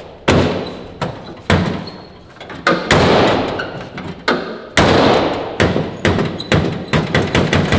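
Pickup truck hood being slammed down again and again, about a dozen loud metal bangs that each echo and come faster near the end. The hood fails to latch because it doesn't shut very well.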